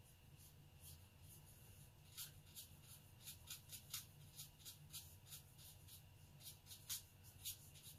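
Faint brush strokes of a watercolor brush on Arches 140 lb watercolor paper: short soft strokes about two a second, starting about two seconds in, over a low steady hum.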